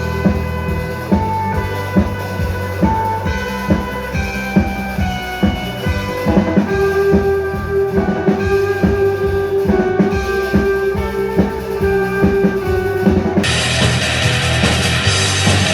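Instrumental rock music: a steady drum-kit beat under a bass line and long held melody notes. About thirteen seconds in it cuts abruptly to a brighter, denser recording.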